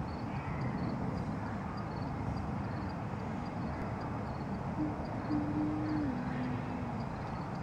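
A woman humming: one held note about two-thirds of the way in, stepping down to a lower note before stopping, over a steady background rush with faint high ticks repeating a few times a second.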